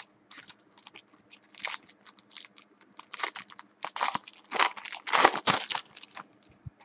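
Foil trading card pack and clear plastic wrapping being crinkled in the hands and torn open: a run of short, crackly rustles, busiest in the second half.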